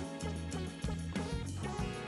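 Background music: an instrumental track with guitar, bass and a steady beat.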